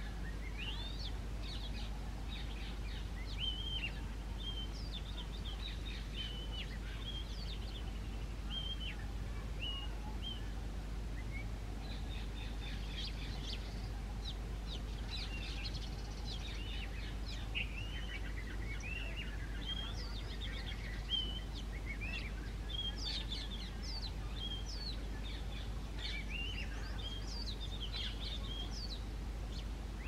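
Male oriental magpie-robin singing: a long run of varied short whistled notes that glide up and down, in phrases with brief gaps, busier in the second half. A steady low hum lies underneath.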